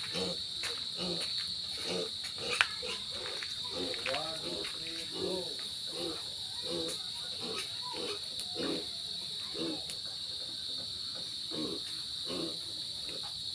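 Insects chirring in a steady high drone, with faint irregular sounds lower down and one sharp knock about two and a half seconds in.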